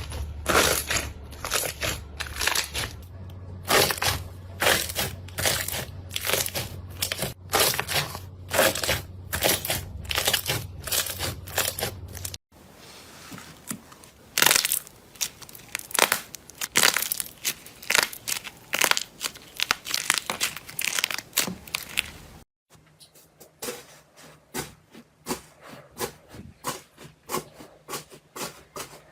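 Slime being squeezed and pressed by hand, giving a quick run of crackles and pops. The sound cuts off abruptly twice and starts again as a new slime clip.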